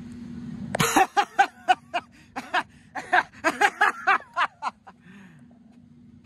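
A man laughing hard in a rapid run of short bursts, which starts about a second in and stops about a second before the end.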